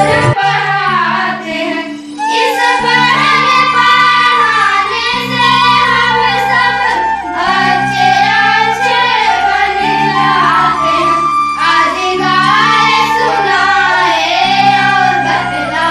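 Schoolgirls singing a Hindi song over instrumental accompaniment, the low accompanying notes held and changing about every two seconds.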